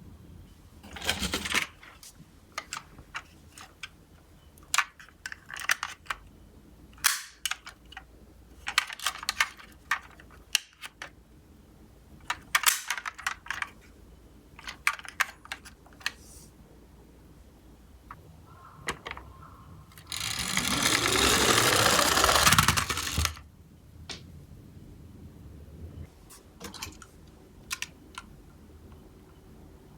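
Clicks and clatters of die-cast toy ambulance cars being handled and set down on a hard surface. About twenty seconds in comes the loudest sound: a rolling, rattling run of about three seconds, with a tone that drops in pitch, as a minicar runs down the slope.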